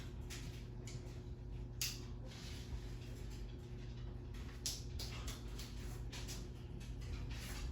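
Ceiling fan motor running with a steady low hum, with a few scattered soft clicks.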